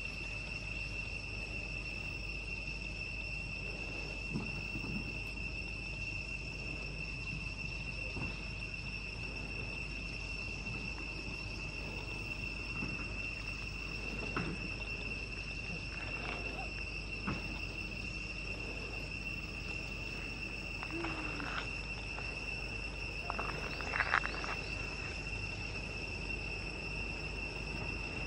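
Steady, high-pitched insect drone of unchanging pitch, as from crickets or cicadas. A few brief faint noises break through it, the loudest near the end.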